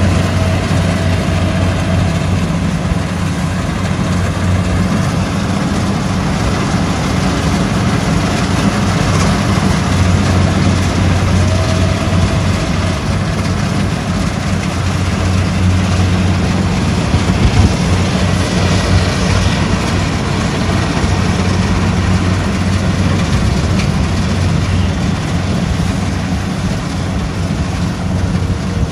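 Tracked rice combine harvester running steadily while cutting and threshing: a deep, even engine hum under a broad rushing of the threshing works, with one sharp knock a little past halfway.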